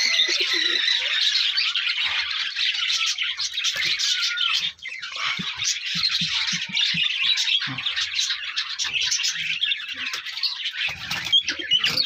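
A dense, continuous chorus of many small birds chirping, with a few short low calls around the middle.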